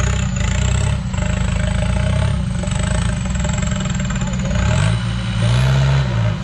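4x4 pickup's diesel engine revving hard under load while stuck in deep mud. About five seconds in, the revs climb, hold briefly and drop back.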